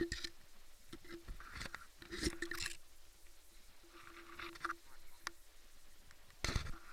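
Dry sugarcane leaves rustling and crunching in short bursts, several times, as something pushes through the cane litter.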